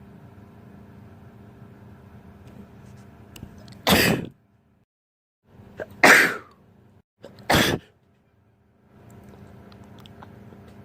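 Three sharp sneezes, each a second or two apart, from a person with pollen allergies, over a low steady room hum.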